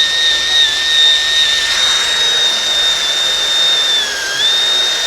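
Power drill running at speed with a steady high whine, its pitch dipping briefly under load twice, most clearly near the end.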